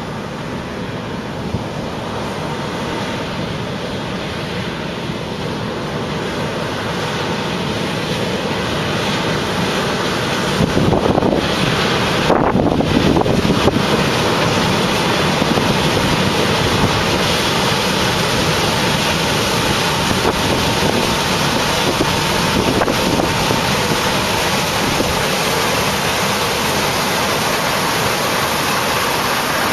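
Combine harvester running with a rushing noise and a faint steady machine hum, growing louder over the first ten seconds or so and then holding, with wind buffeting the microphone.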